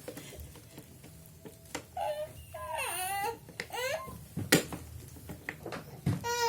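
A baby fussing and crying in short, high-pitched cries that waver up and down in pitch, with a sharp knock about two-thirds of the way through and another, steadier cry starting near the end.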